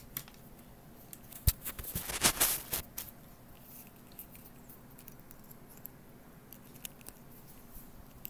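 RCA video plugs and cables being handled and swapped over: a sharp click about a second and a half in, then a second or so of scraping and rubbing, followed by scattered light clicks.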